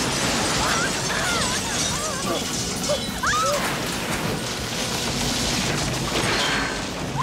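Fight-scene sound effects: a steady wash of smashing and crashing, with a sharp impact about three seconds in as a body lands on a car bonnet, all mixed with music.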